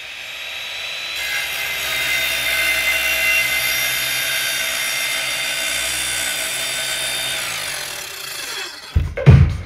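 Synthesized intro sound effect: a steady, noisy drone with several held tones swells in, holds, then slides down in pitch and dies away. Just before the end, electronic dance music starts with a heavy kick drum.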